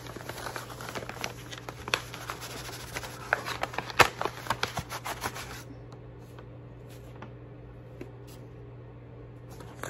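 Yellow paper mailer envelope being worked open by hand: rustling and crinkling with scattered small clicks, and a sharp snap of paper about four seconds in. The handling stops a little past halfway, leaving only a faint steady hum.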